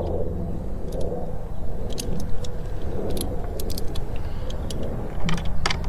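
Irregular light metal clicks and clinks from a wrench and nut being worked onto a car battery terminal, over a steady low rumble.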